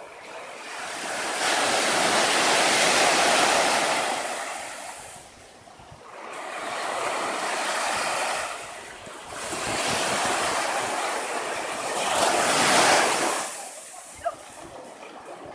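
Small waves breaking on a sandy beach and washing up the shore. The surf rises and falls in three surges a few seconds apart, with quieter lulls between them.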